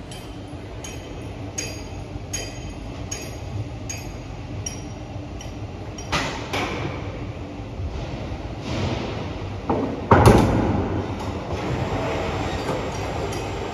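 Crane working while a heavy transformer is loaded: a steady machine run with a regular click about every three-quarters of a second, then louder metal clanks and a heavy thump about ten seconds in, the loudest sound.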